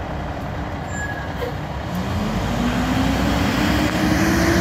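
Fire engine pulling out. Its engine runs low and steady, and about two seconds in a siren starts winding up, its pitch rising slowly as it gets louder.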